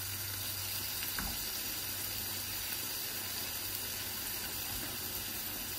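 Chopped leek, peppers, tomato and onion sizzling steadily in oil in a frying pan as they sauté.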